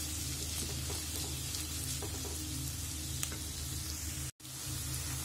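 Grated vegetables sizzling in a frying pan as a wooden spoon stirs them, over a steady low hum. The sound cuts out for a moment about four seconds in.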